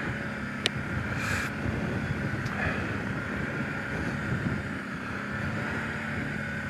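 Kawasaki Brute Force 750 ATV's V-twin engine running at low, steady revs, with wind noise on the microphone and a couple of brief clicks and a short hiss near the start.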